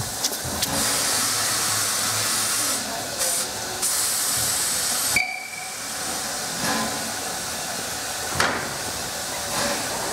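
Narrow-gauge steam locomotive of the Molli railway blowing off steam in a loud, even hiss that cuts off abruptly about halfway through. A brief high tone follows, and then a quieter hiss with a short sharp burst of steam near the end.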